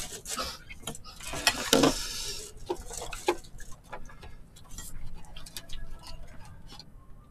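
Tableware sounds while eating: disposable chopsticks and a spoon tapping, scraping and stirring food in plastic containers. There are many short clicks, and a louder scratchy noise about one and a half seconds in.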